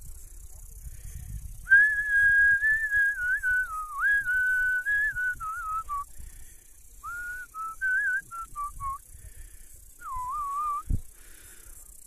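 A person whistling a slow melody through the lips, in several phrases with short breaks between them, starting about two seconds in.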